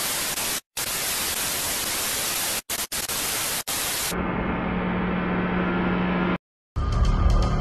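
Television static sound effect: a loud, even hiss cut by several brief dropouts. About four seconds in it turns to a duller hiss with a steady low hum, then cuts off.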